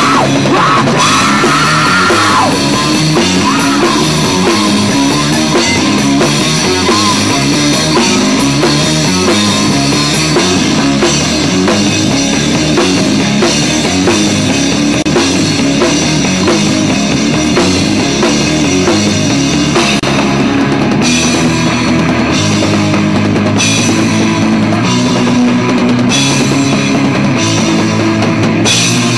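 Live rock band playing loud: electric guitars, bass guitar and a full drum kit.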